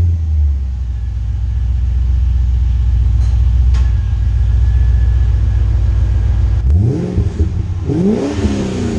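Holden Commodore ute's LS1 V8 heard at the tailpipe through its stock exhaust, catalytic converters still fitted, idling steadily just after starting. Near the end it is revved twice, the pitch rising and falling each time, the second rev higher.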